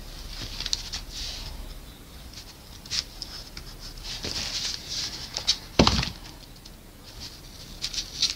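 Masking tape crinkling and rustling on a wooden canvas frame as it is pressed down and trimmed with dull scissors that struggle to cut. Short snips and clicks come through, with one louder knock about six seconds in.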